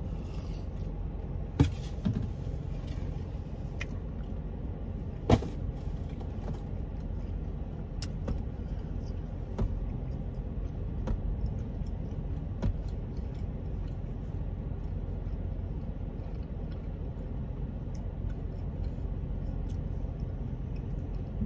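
Steady low rumble inside a parked car's cabin, with the engine and air conditioning running. A few sharp clicks stand out, the loudest about one and a half and five seconds in.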